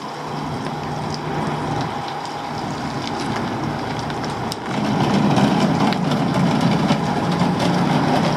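A heavy vehicle's engine running steadily, getting louder about five seconds in, with scattered metallic clanks.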